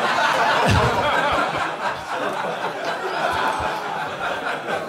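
Audience laughing together in a comedy club, easing off a little near the end.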